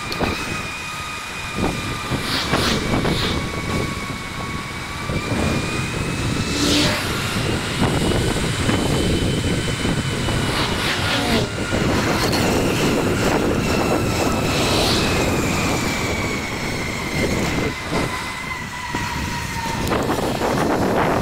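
Mountain bike rolling fast on asphalt, with wind on the microphone. A thin, steady whine from the wheels drifts slowly up and down in pitch with speed, and a few short gusts stand out.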